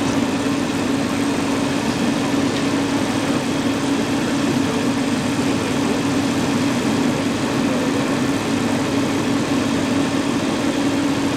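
Heavy diesel engine of a fire department heavy rescue tow truck idling, a steady unchanging hum.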